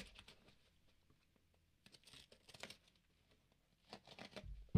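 Faint rustling and crinkling of a cardboard shipping box being handled, with scattered small clicks; a low bump of the box being moved near the end.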